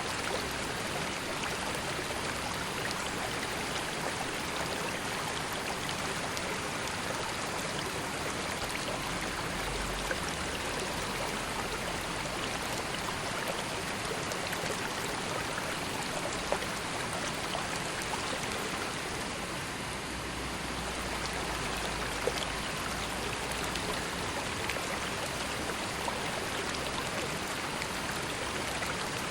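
River water flowing steadily, an even rushing noise with a few faint splashes and ticks.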